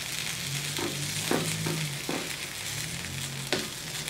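Birria tacos sizzling as they fry on a cast iron griddle, with several scrapes and knocks of a metal spatula against the iron.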